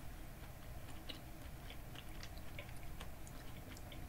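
Faint wet chewing of a mouthful of peeled orange, with small irregular clicks from the mouth.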